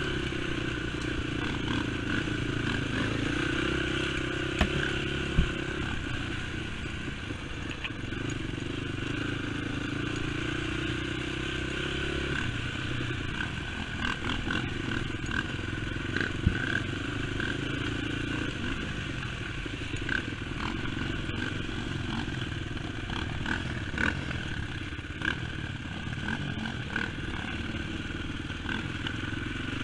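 Sport quad's single-cylinder four-stroke engine, a Honda TRX450R, running along a bumpy dirt trail, its pitch rising and falling with the throttle. Sharp knocks and clatter come through as it rides over bumps, the loudest a few seconds in.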